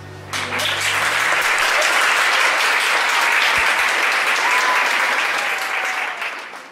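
Audience applauding, starting just after the last guitar chord of the song, which rings out and dies away in the first second or so. The clapping holds steady and fades near the end.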